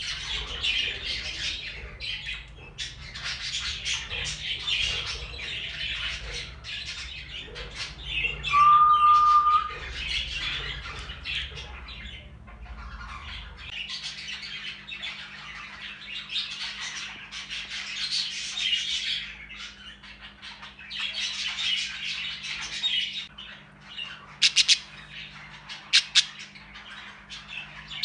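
Exhibition budgerigars chattering and warbling without pause, with one clear whistled note about a third of the way in that is the loudest sound, and a few sharp clicks near the end.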